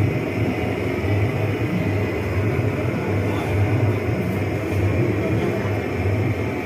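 Steady low droning noise with a hum low down that swells and fades unevenly; no voice stands out.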